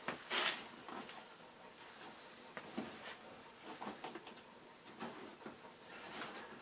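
Irregular light metallic clicks and rattles from handling the fan's steel wire grille and its rim clips. The sharpest clatter comes about half a second in, followed by a scatter of smaller ticks.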